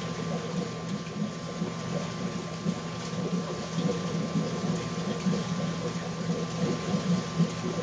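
Reef aquarium's pumps and circulating water: a steady low hum with a faint higher tone over an even rush of moving water.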